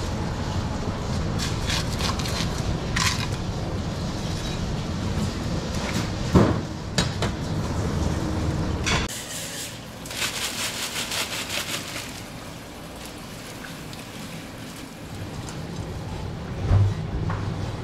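Knife work on a whole yellowfin tuna: scattered knocks and clinks of the blade and fish against the cutting board and steel table, and a quick run of rasping, scraping strokes about ten seconds in. Under it is a steady low rumble that falls away about nine seconds in.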